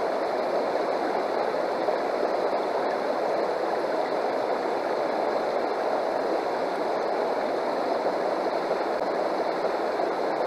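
River water rushing steadily over rocks and running through a metal gold sluice box set in the current.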